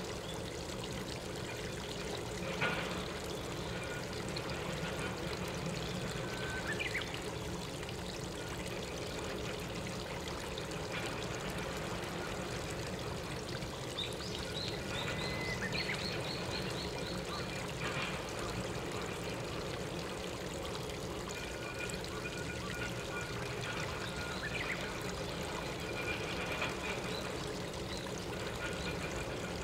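Steady rush of flowing stream water, with a few faint, short, high bird chirps, including a quick run of short notes about halfway through.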